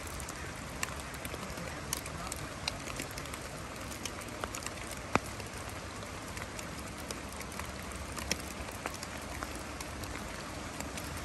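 Steady rain falling, an even hiss with many single raindrops ticking sharply close by, one louder tick about five seconds in.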